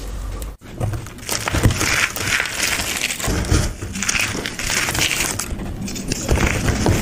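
A dusty, chalky block being crumbled and crushed by hand, giving crisp, crackly crunches in clusters as chunks break off and powder falls, with a brief drop-out about half a second in.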